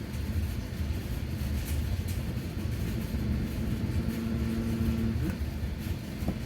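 Steady low rumble of a running machine. About four seconds in, a steady pitched tone joins it for just over a second, then stops.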